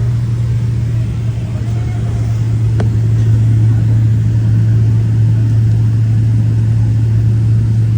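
Airliner engines and airframe rumbling steadily during the takeoff, with a strong low hum, growing a little louder about two to three seconds in. A single sharp click sounds near the middle.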